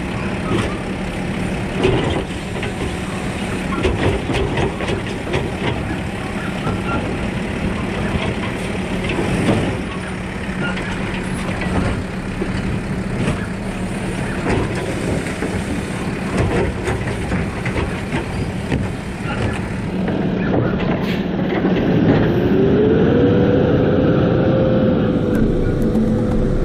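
Automated side-loader garbage truck emptying wheeled carts: the diesel engine and hydraulic arm run steadily while the arm grips, lifts and shakes each cart into the hopper, with repeated clanks and knocks of plastic carts and metal. Near the end the truck pulls away, its engine note rising and then holding.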